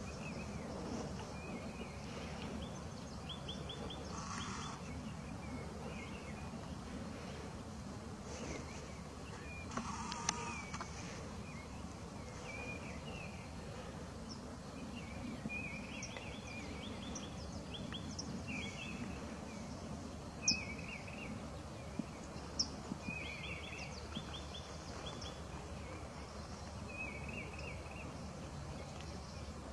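Steady low background rumble with a small bird chirping short, quick phrases every couple of seconds; a few sharp clicks near the middle.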